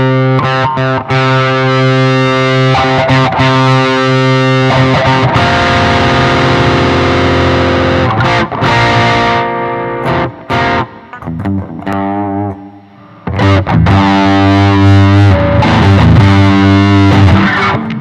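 HSS electric guitar played through a Zoom G1X On's Dynamic Drive effect: distorted chords left ringing and strummed, with a short break about twelve seconds in.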